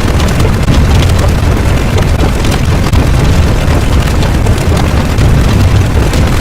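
Loud, steady low rumbling noise with no clear pitch or rhythm.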